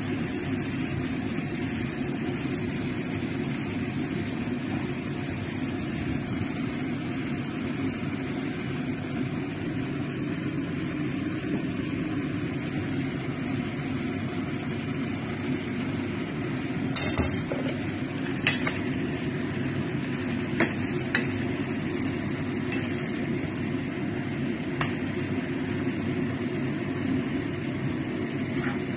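Oil frying in a nonstick wok on a gas stove, under a steady hiss and hum. About halfway through, a metal strainer clanks sharply against the pan as rice noodles are tipped in, followed by a few lighter knocks and clinks.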